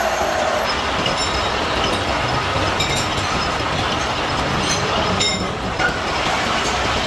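Cincinnati milling machine running and cutting sprocket teeth into a stack of motorcycle rear-sprocket blanks: a steady metal-cutting din with a faint high whine and a few light clicks.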